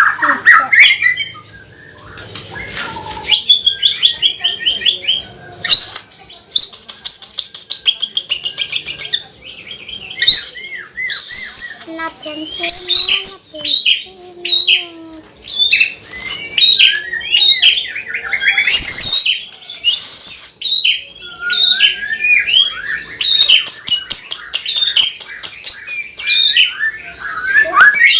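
White-rumped shama singing continuously in full song: varied whistled phrases and fast trills mixed with sharp, rattling 'cekrek' chatter.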